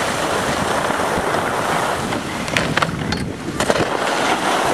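Steady rush of wind on the microphone while riding fast down a snow slope, with the hiss of sliding over snow and a few short scrapes between about two and a half and three and a half seconds in.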